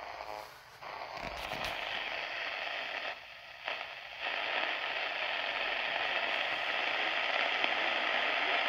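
Medium-wave hiss and static from a Sangean ATS-808 portable radio tuned to 765 kHz, growing steadily stronger as a Tecsun AN-200 passive loop antenna beside it is tuned to peak the weak signal. The noise drops out briefly twice in the first four seconds, and a few clicks sound a little over a second in.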